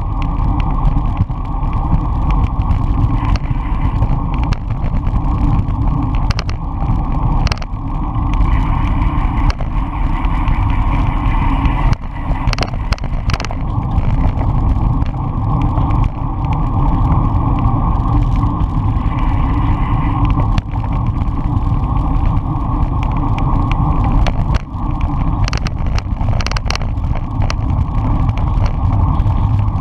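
Steady wind rumble on the microphone of a camera mounted on a road bicycle moving at speed, with road noise from the tyres on asphalt. A few sharp clicks and knocks stand out, clustered about twelve seconds in and again near the end.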